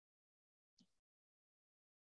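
Near silence: the audio drops out almost completely.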